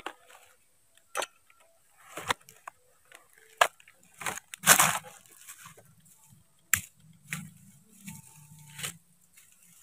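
Irregular crunching and rustling of dry leaves and palm fronds underfoot as someone stands up and walks across leaf litter. The strikes come scattered, a few per second at most, and are loudest about halfway through.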